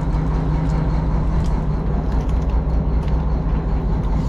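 Fishing boat's engine running steadily, a low, even drone with faint ticks over it.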